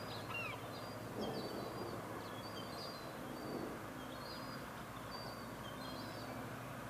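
Small birds chirping, many short high chirps scattered throughout, over a steady low background rumble.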